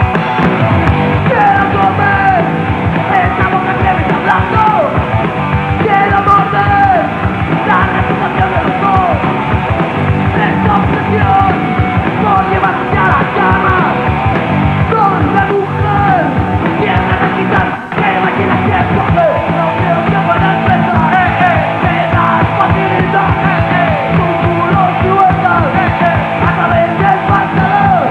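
Punk rock band playing live: distorted electric guitars through Marshall amplifiers, bass and drums, with shouted rock vocals.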